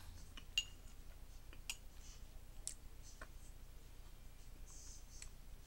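Metal spoon clinking lightly on a bowl while someone eats, one ringing clink about half a second in, with faint scattered clicks of chewing.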